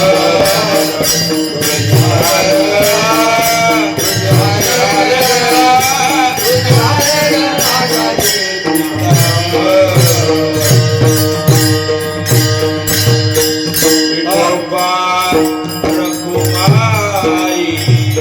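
Varkari devotional singing in a traditional tune: a male voice singing over steady pakhawaj (mridang) drum strokes, with small hand cymbals clicking in time and a held drone underneath.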